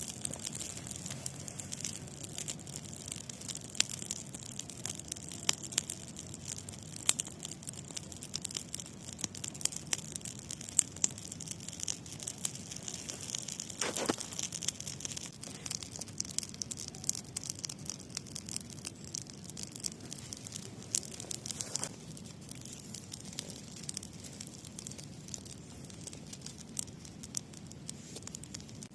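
Wood campfire crackling: a steady run of sharp snaps and pops over a soft hiss. The snaps come thickly for most of the time and thin out near the end.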